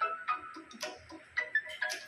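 Background music with short, sharp, ticking notes over a steady tone.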